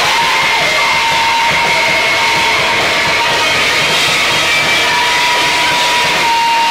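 Live harsh Japanese noise music: a dense, unbroken wall of distorted noise at a constant loudness, with a couple of steady high tones held through it.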